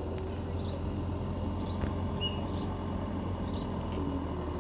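Miniature railway locomotive running slowly with a steady low rumble as it pulls in, while a bird chirps over it in short high notes about once or twice a second.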